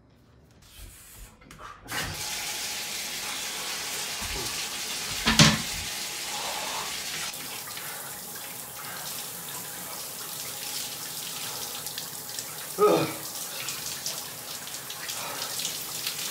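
Shower spray running steadily onto a person and a tiled floor, starting about two seconds in. Two brief, louder sounds break through, one about five seconds in and one near thirteen seconds in.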